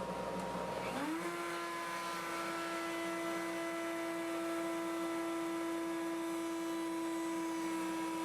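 Table-mounted router motor switched on about a second in: its pitch climbs quickly as it spins up, then holds a steady high whine at full speed, with no change of load. A lower steady hum sits underneath throughout.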